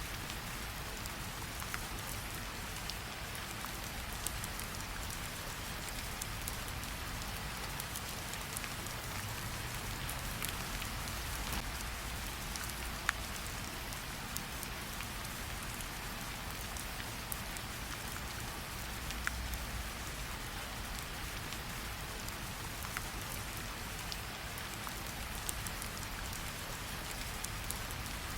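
Steady rain falling, with scattered sharp crackles and pops from a campfire.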